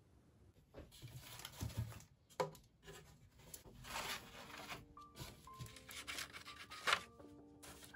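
A sheet of paper rustling and crackling as it is handled, in uneven bursts, with one sharp crackle near the end. Instrumental music with held notes comes in about halfway.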